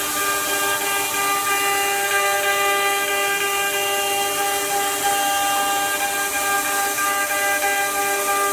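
High-speed CNC router spindle running with a steady whine of several pitches over a constant hiss.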